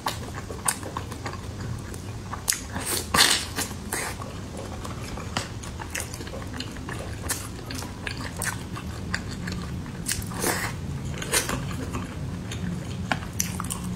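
Close-miked mouth sounds of a person biting and chewing pan-fried buns: irregular wet chewing with sharp clicks, loudest about three seconds in and again around ten and a half seconds.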